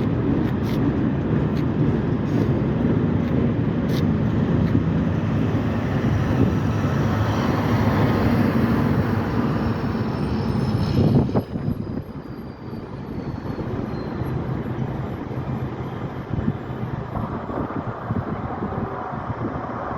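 Freight train cars rolling past in a loud, steady rumble with occasional sharp clicks. About eleven seconds in the noise drops off sharply as the end of the train goes by, leaving a quieter steady rumble.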